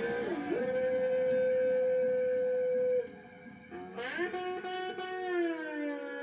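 Electric guitar in a loose instrumental jam: one long sustained note, bent down briefly near the start, that cuts off about three seconds in. After a short gap, new notes slide down in pitch and settle into a steady held tone.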